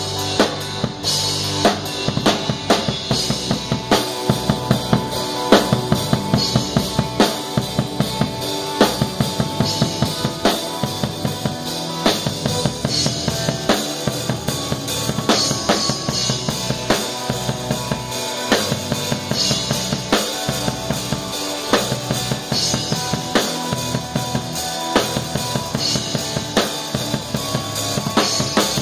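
A rock band playing live, with the drum kit loud and busy: kick, snare and rim hits in a quick, steady rhythm over sustained instrument tones.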